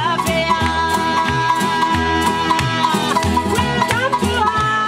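Music with a melody of held, sliding notes over a steady bass beat and light percussion.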